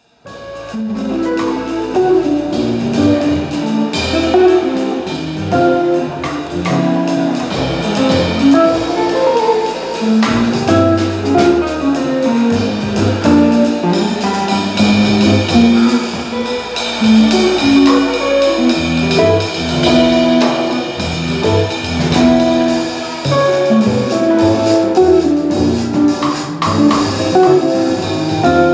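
Jazz trio playing: archtop electric guitar, upright double bass and drum kit with cymbals. The music fades in from silence at the very start.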